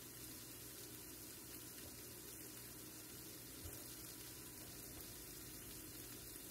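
Faint steady hiss from the stovetop as shallots and onions cook gently in a skillet over a gas burner, with one soft knock a little past halfway.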